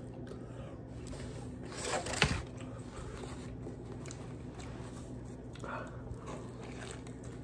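A bite into a burger about two seconds in, then quiet chewing over a low steady hum.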